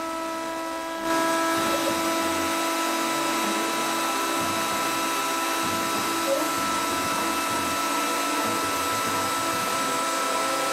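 Home-made CNC machine cutting PVC: a steady motor whine with a hiss of cutting that steps up in loudness about a second in, and one brief tick about six seconds in.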